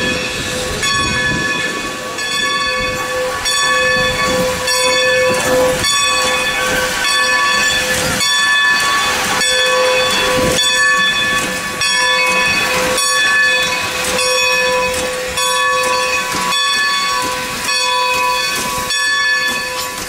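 Steam locomotive bell on No. 90, a Baldwin 2-10-0, ringing steadily, struck a little more than once a second, as the engine rolls slowly past with a hiss of steam.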